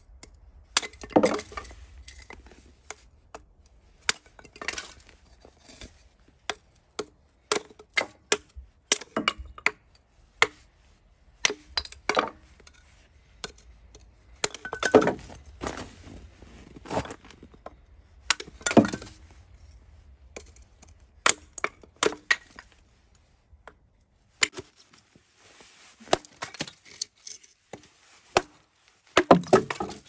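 Hatchet splitting kindling on a wooden chopping block: sharp, irregular knocks as the blade strikes and drives into the sticks, with cracks of wood splitting and small split pieces clattering.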